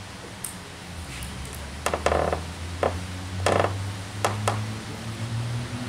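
Short sharp noises picked up right at a handheld microphone held to the mouth, about six of them in the middle seconds, over a low steady hum.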